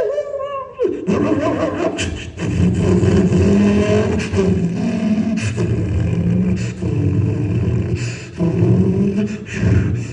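Human voices making non-speech vocal sound effects. They hold and slide pitched tones, with a wavering downward glide at the start, among scattered mouth clicks and taps.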